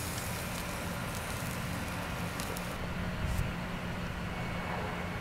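Charcoal fire crackling under a wire grill of pork spare ribs, with a few light clicks over a steady low hum.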